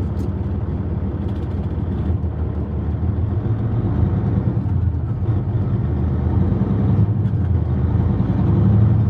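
Tractor-trailer's diesel engine and road noise heard inside the cab: a steady low drone that grows a little louder from about four seconds in.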